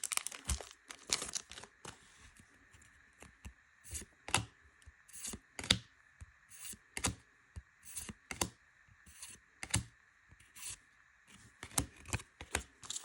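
Trading cards and booster-pack wrappers being handled by hand: short, irregularly spaced clicks, snaps and rustles of cards sliding and flicking against one another, with gaps between them.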